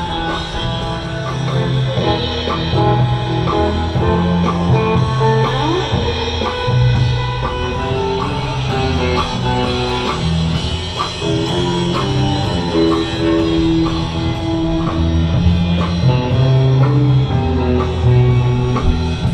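Rock instrumental music: guitar over bass and a drum kit, with a steady beat.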